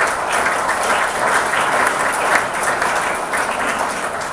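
Audience applauding, a dense, steady clapping that tapers off near the end.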